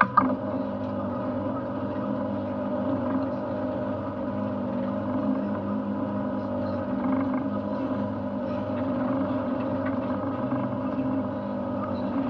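Boat's Yamaha outboard engine running steadily, with a sharp knock just at the start.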